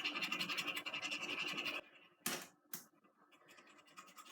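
Pen scribbling rapidly on a hard drive, a fast scratching that stops just under two seconds in, followed by two short single scratches.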